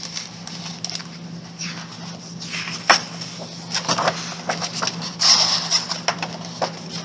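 Paper rustling and clicks of a picture book being handled and its pages turned, with a sharp click about three seconds in and a longer rustle a little after five seconds, over a steady low hum.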